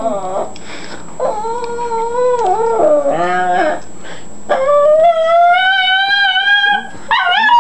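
Small dog howling: long, drawn-out howls, the first held level with a dip near its end, the second slowly rising in pitch, and a third starting near the end.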